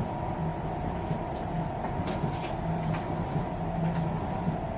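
Water pump running with a steady mechanical hum, with a few faint soft clicks of clothes being handled.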